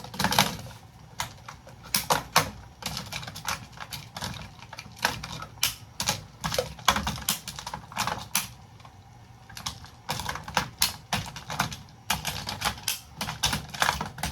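Irregular clicks and clacks of metal and plastic breaker parts being handled and pried apart during a breaker box teardown, coming in quick clusters with short gaps.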